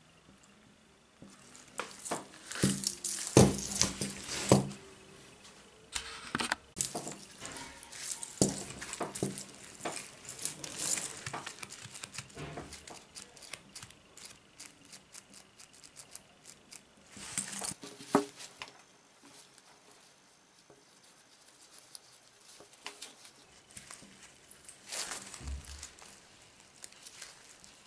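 Chainmail rings clinking and rattling as a mail glove is handled and worked, with scattered sharp clicks. The loudest clatter comes about three to five seconds in.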